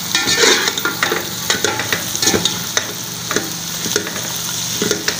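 Shredded cabbage and scrambled egg sizzling in oil in an aluminium pot, stirred with a slotted metal spoon that scrapes and knocks against the pot several times.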